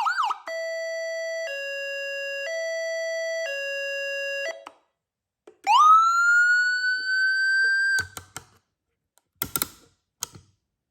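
Whelen Epsilon electronic siren switching to a hi-lo tone, two pitches alternating about once a second for about four seconds. After a short gap, a tone sweeps quickly upward, levels off and holds for about two seconds, then cuts off suddenly, followed by a few sharp clicks.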